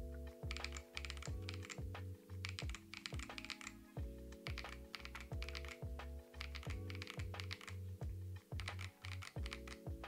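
Steady fast typing on a mechanical keyboard with Keychron Banana tactile switches: a run of quick clacking keystrokes, first on KSA-profile keycaps and then on Cherry-profile keycaps.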